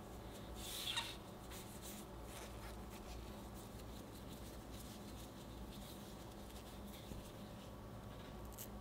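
Fingers handling and stretching pieces of soft, cornstarch-dusted glutinous rice dough: faint patting and rustling, with a brief louder rustle about a second in.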